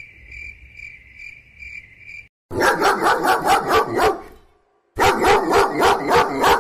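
Cricket chirping, a steady high trill pulsing about twice a second, which cuts off after about two seconds. Then a dog barks in rapid runs of barks, with a short break in the middle.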